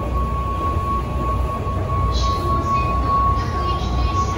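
Busy train-station ambience heard from a descending escalator: a steady low rumble with a constant high-pitched tone running through it. From about halfway in there are short hissy scuffs.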